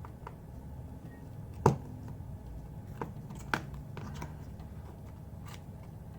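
Scattered small clicks and taps of a spudger working under the edge of an iPhone 11's screen, with one sharper click about a second and a half in. A faint low hum runs underneath.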